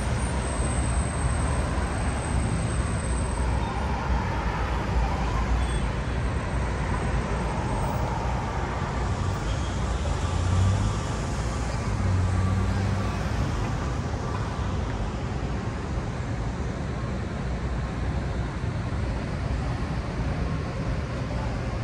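City street traffic: cars driving past, a steady rumble with an engine passing a little louder about ten to thirteen seconds in.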